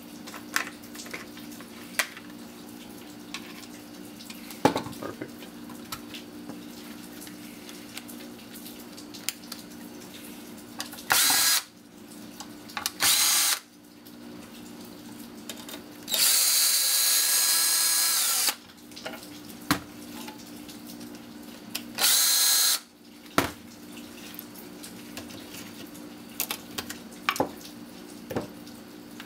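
Cordless drill-driver backing out the small screws of a vehicle engine computer's circuit board: four short runs of its whining motor, the longest about two seconds near the middle. Light clicks and taps of screws and parts on the bench fall between the runs.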